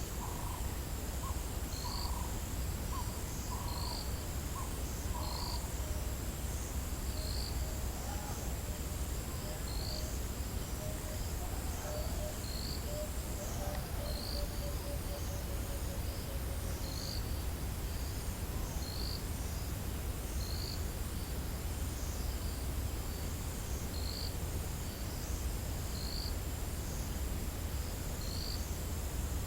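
Dawn bush chorus of insects and birds: a steady high insect trill with a short chirp repeating every second or two. Birds call repeatedly in the first few seconds, and a run of lower notes slowly falls midway, over a steady low rumble.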